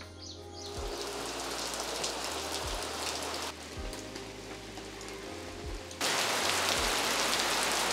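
Steady heavy rain pattering on leaves and a wet paved floor, an even hiss. It swells over the first second, drops a little past three seconds in, and comes back louder about six seconds in.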